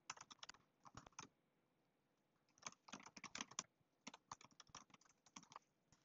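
Faint typing on a computer keyboard: quick runs of key clicks in three bursts, with a pause of about a second and a half after the first burst.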